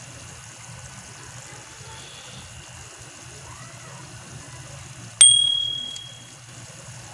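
Steady low hiss of a pan of pork picadillo simmering on a gas stove. About five seconds in, a single sharp metallic ding rings out and fades over about a second.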